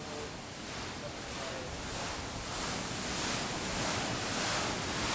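Steady rushing noise with no clear rhythm or pitch, slowly growing a little louder.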